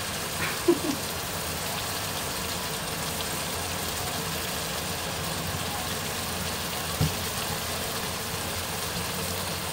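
Kaleji (liver curry) sizzling steadily in oil in a frying pan, a constant hiss, with a soft knock about seven seconds in.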